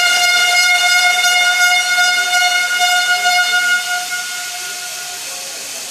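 A long, loud horn blast: one steady held note with strong overtones, sounding for about four seconds before fading away.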